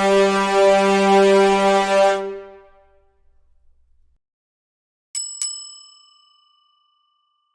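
A war horn holds a long, steady note that fades out about two and a half seconds in. A few seconds later come two quick metallic dings, about a third of a second apart, that ring on and die away.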